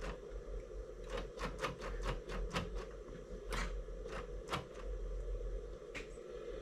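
Faint steady hum with about a dozen irregular light clicks from a switched-on Huina Kabolite K3362 1:14 RC hydraulic dump truck.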